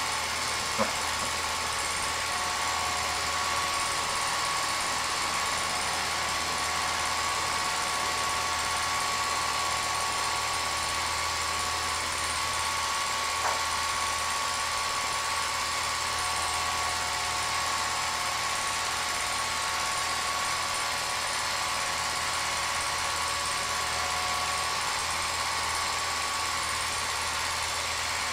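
Film projector running: a steady mechanical whir with a constant hum and a thin high whine, and a light click about a second in and another midway.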